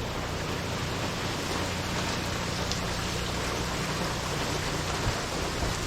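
Steady wind of Hurricane Beryl with rain, an even noise that does not let up.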